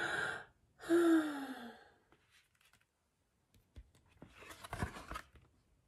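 A woman takes a deep breath in and lets it out with an audible sigh that falls in pitch, demonstrating a calming deep breath. A few faint rustles and soft bumps follow near the end.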